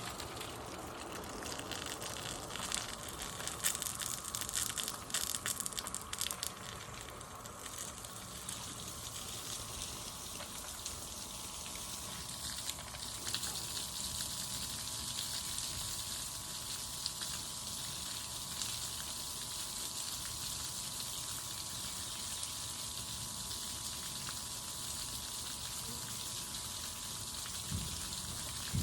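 Steady hiss of splashing water, with a louder crackling spatter between about three and seven seconds in.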